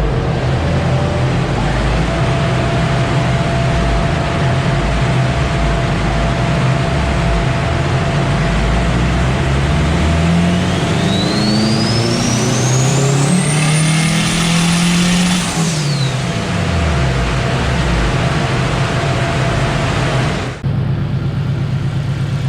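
Turbocharged Honda K20 four-cylinder engine running under load in a Honda Integra DC2. The revs climb steadily for about five seconds with a high whistle rising alongside, then drop away. The misfire is still there despite new, re-gapped spark plugs.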